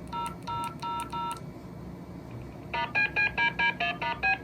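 DTMF touch-tones. First come four identical short beeps, then after a pause a fast run of about nine beeps at changing pitches, like a number being keyed in.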